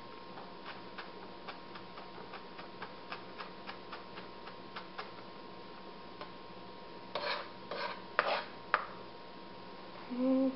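Chef's knife chopping a shallot on a plastic cutting board: a run of light, quick taps, about three a second, then a few louder, longer strokes near the end.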